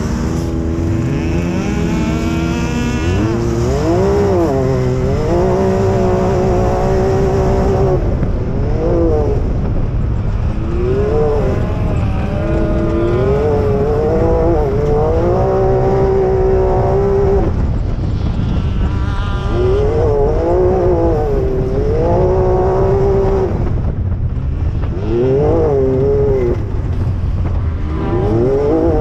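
Side-by-side UTV engine revving as it drives over sand dunes, its pitch climbing, holding and falling again every few seconds. Underneath is a steady low rush of wind on the microphone.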